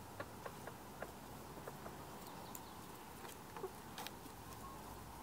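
Faint outdoor background with a few scattered soft clicks and ticks.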